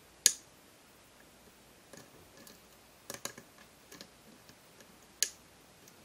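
Single-pin picking of a pin-tumbler lock: a hook pick lifting pins against tension, giving small metallic clicks. There are sharp clicks just after the start and about five seconds in, with a quick cluster around three seconds and a few faint ticks between.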